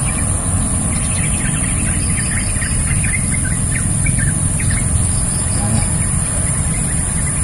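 Outdoor ambience at a swamp: a steady low rumble with a constant high-pitched hum above it, and scattered short chirps over the first few seconds.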